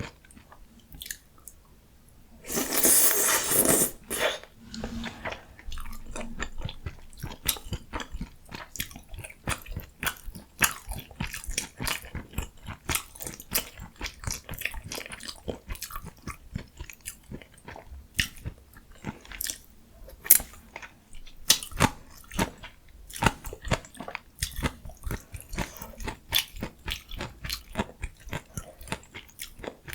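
Close-miked eating sounds: a person chewing and biting ramyun, mustard leaf kimchi and dumplings, with many small wet crunches and clicks. One loud rushing sound, about a second and a half long, comes about three seconds in.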